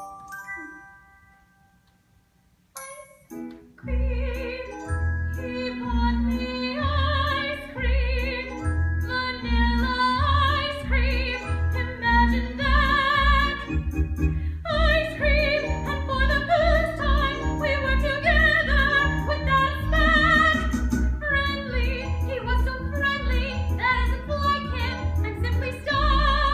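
A woman singing a show tune in a trained, operatic style with vibrato, over a recorded accompaniment with a steady bass line. It begins after a pause of about three and a half seconds in which a few bell-like accompaniment notes fade to near silence.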